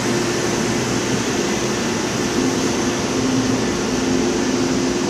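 Steady whir of sugarhouse machinery running, with a faint low hum under it.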